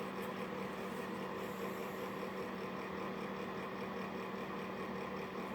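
Steady machine hum with several held low tones.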